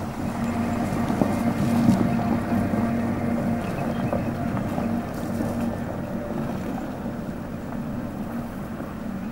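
Car engines running at idle: a steady low hum, with wind on the microphone.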